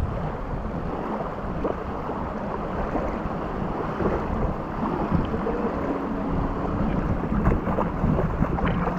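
Steady rushing noise of wind and surf.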